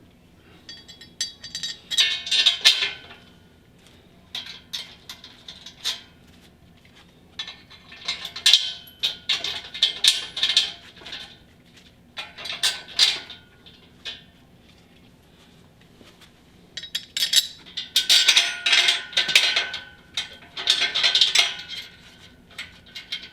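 Metal brake-stand parts clinking and rattling in several separate bursts as the axle plates are handled and fastened on.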